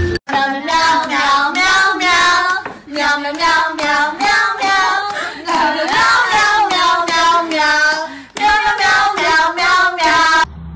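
A high voice singing a song in phrases, with brief pauses about three and eight seconds in; it stops shortly before the end.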